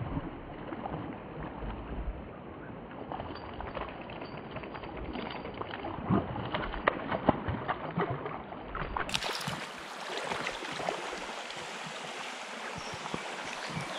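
A hooked trout splashing and thrashing at the surface of a shallow stream again and again, over the steady sound of flowing water. About nine seconds in, the sound turns to a brighter, hissing rush of water as the fish is brought into a landing net.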